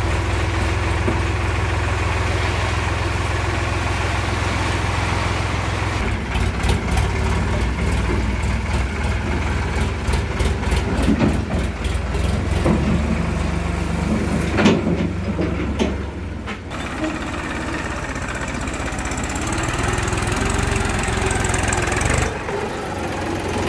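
A Sonalika Sikandar tractor's diesel engine runs steadily while its hydraulic tipping trailer is raised and dumping soil. From about six seconds in, a run of clicks and knocks from stones and clods sliding out of the trailer bed joins the engine sound, ending in one sharp knock. Near the end the sound changes abruptly to a second tractor engine, a Massey Ferguson 1035 DI.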